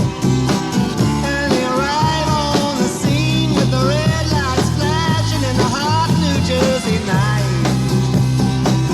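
Folk-rock band playing, with a sliding, bending violin melody over bass and drums.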